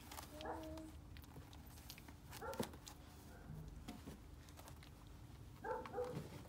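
Four-week-old sheepadoodle puppies whimpering and yelping as they play. The short high cries come about half a second in, louder around two and a half seconds, and in a cluster near the end, with faint scuffling clicks between them.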